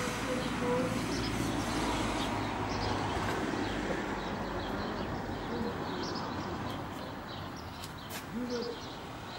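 Outdoor street-and-park background: a steady hum of noise with small birds chirping and pigeons cooing briefly near the start and again near the end.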